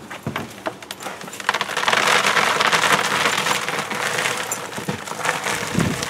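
Pebbly growing medium pouring out of a tipped plastic hydroponic bucket into a plastic tub: a few scattered clicks, then a dense rattling patter that starts about a second and a half in and eases off near the end.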